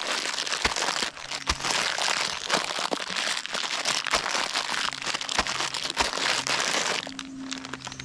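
Snack packet crinkling and crunchy food being crunched right up at the microphone, ASMR-style: a dense run of crackles and fine clicks that stops about seven seconds in.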